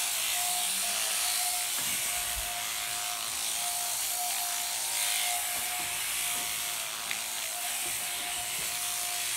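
Electric sheep-shearing machines with hanging overhead motors running steadily, the handpieces buzzing with a constant hum as fleece is shorn.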